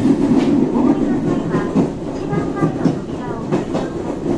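Echizen Railway electric train running, heard from inside the car: the steady hum of the traction motors and gearing with wheels clacking over rail joints, easing somewhat about two seconds in. A level crossing's warning bell rings past, wavering in pitch, between about one and three seconds in.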